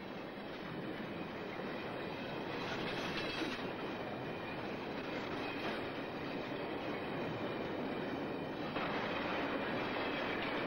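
Long iron-ore freight train rolling along the track, its wagons running in a steady rumble with thin, high wheel squeal over it. The sound gets louder about three-quarters of the way in.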